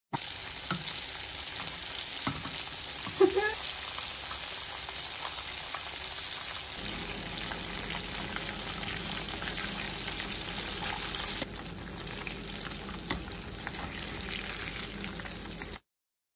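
Chicken wings deep-frying in hot vegetable oil in a pan: a steady sizzle with scattered small pops. One louder, sharp sound comes about three seconds in.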